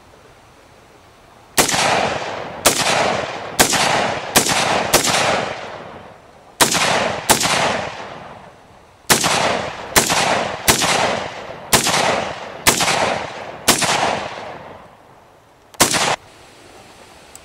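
Gun fired semi-automatically, about fourteen shots at roughly one a second in irregular groups, each followed by a long rolling echo; the last two shots come close together.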